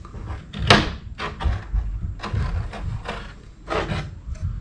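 A thin laser-cut wooden template being lifted off a wooden sign board: a sharp wooden knock about a second in, then a string of lighter knocks and scrapes of wood on wood.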